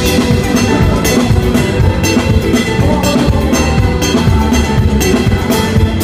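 Live band playing an up-tempo Latin-jazz instrumental, with drum kit and percussion keeping a steady beat under pitched melodic lines.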